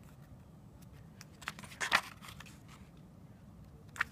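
Pages of a paper picture book being turned by hand: a few short paper swishes, the loudest about two seconds in and another near the end.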